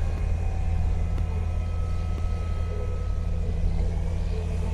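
Vehicle engine running steadily, a low, even drone with no change in speed.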